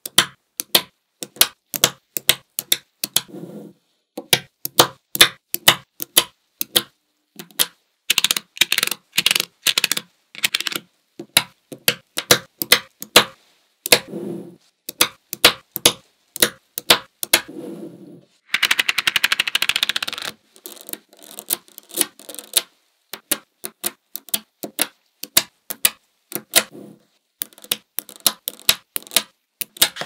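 Small magnetic balls clicking sharply as they are snapped onto one another one at a time, a few clicks a second. Twice, for a second or two, a dense rattle as many balls clatter together at once.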